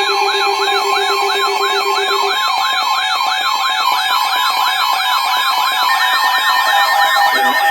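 Electronic siren yelping, its pitch sweeping up and down about three to four times a second over steady alarm tones. A low steady tone drops out a couple of seconds in, and a lower warbling layer joins near the end.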